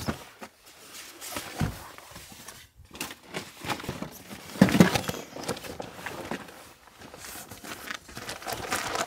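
A large fabric tent bag being hauled out of a van's rear cargo floor: rustling, scraping and scuffing, with irregular knocks, loudest about halfway through.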